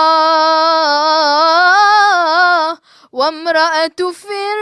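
A girl's solo singing voice in an Arabic nasheed, holding one long wavering, ornamented note for nearly three seconds, then breaking off briefly and going on with shorter sung phrases.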